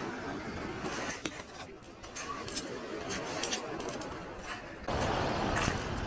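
Footsteps crunching on a pebble beach, the stones clicking and scraping together underfoot at an irregular pace. A louder rushing noise comes in about five seconds in.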